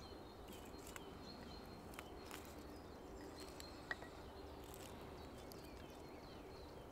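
Very quiet outdoor woodland ambience: a faint steady hiss with a few soft clicks and short, high chirps.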